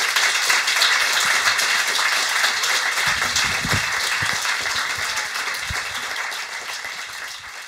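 Audience applause: dense clapping that fades gradually toward the end.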